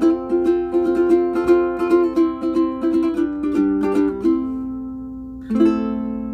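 Pono concert ukulele with aNueNue Green Planet strings and a low G string, fingerpicked in a quick run of notes, then a held chord fading, and a strummed chord about five and a half seconds in, left ringing.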